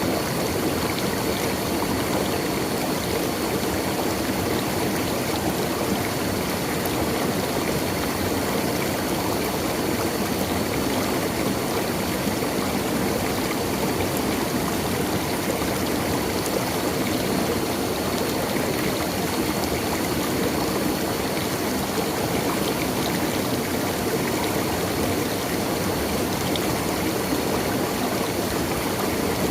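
Water of a stream flowing and splashing over rocks, a steady rushing with no breaks.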